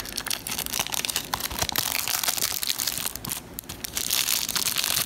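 Plastic shrink-wrap crinkling and tearing as it is pulled off a Blu-ray case by hand: a dense run of crackles, louder from about two seconds in and again near the end.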